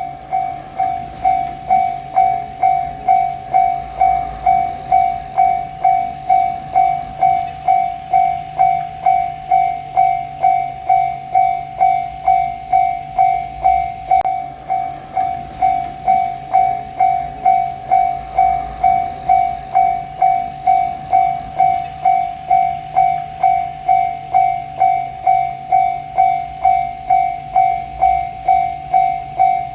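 Japanese railway level crossing warning bell ringing its steady "kan-kan", one ringing tone struck a little under twice a second without a break, the signal that a train is approaching. A faint steady low hum lies underneath.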